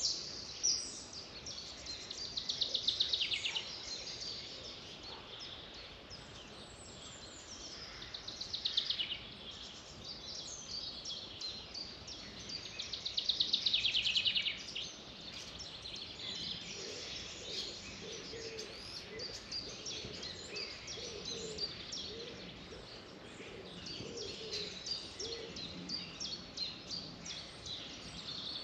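Several birds singing in a forest chorus, with constant high chirps. Three louder rapid trills come about 2, 8 and 13 seconds in, and lower-pitched calls join in the second half.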